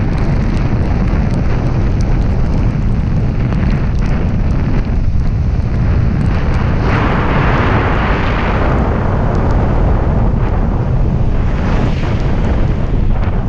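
Wind buffeting the microphone of a camera mounted outside a moving car, a heavy, steady low rumble. Under it is the hiss of tyres on a wet road, which swells for a couple of seconds about halfway through.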